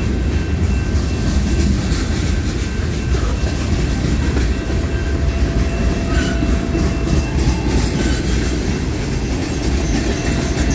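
Freight train cars rolling past close by: a steady rumble of steel wheels on rail with clickety-clack over the rail joints.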